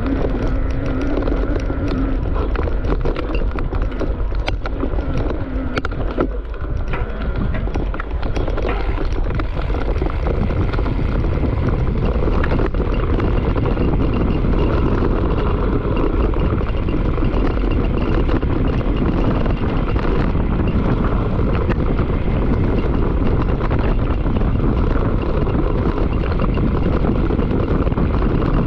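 Mountain bike descending a dirt trail at speed: tyre noise on the ground with constant clicking and rattling of the bike over roots and bumps, and wind buffeting the microphone.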